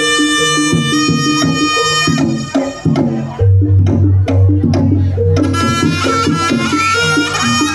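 Live Javanese jaranan gamelan music: a sustained wind-instrument melody over a pattern of hand-drum strokes and tuned percussion. About two and a half seconds in, the melody drops out and the drums carry on alone with a deep low note holding underneath. The melody comes back about two seconds later.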